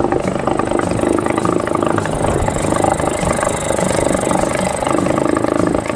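Flaizer FZ3.5HS 3.5 hp two-stroke outboard motor running steadily with its lower unit in a bucket of water, while being run in.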